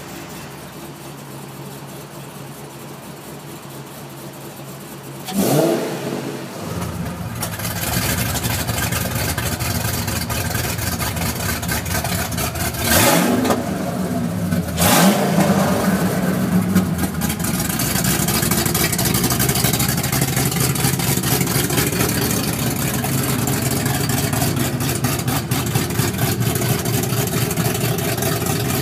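2007 Mustang GT's 4.6-litre V8 with Ford Racing Hotrod cams idling, quiet for the first five seconds with the exhaust cut-outs closed. Then the exhaust suddenly gets much louder as the cut-outs open, with a quick rev. Two more short revs follow about halfway through, and it settles into a much louder, deeper idle through the open cut-outs.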